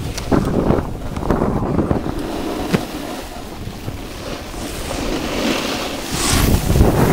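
Wind rushing and buffeting over a camera microphone moving fast downhill, mixed with the hiss and scrape of edges carving through snow, in uneven surges.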